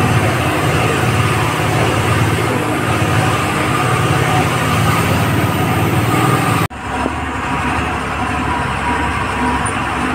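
Engine and road noise of a heavy vehicle heard from inside its cab as it drives over a rough, broken road: a steady low drone. About two-thirds of the way through it breaks off abruptly for an instant and then carries on slightly quieter.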